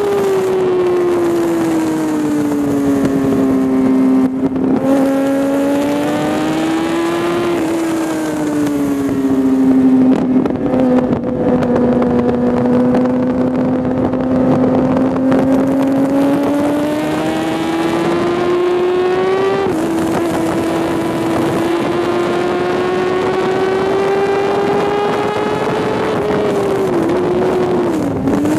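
Sport motorcycle engine at track speed, heard from the bike, its revs climbing steadily and then stepping down at gear changes, with two quick dips near the end, over a steady rush of wind on the microphone.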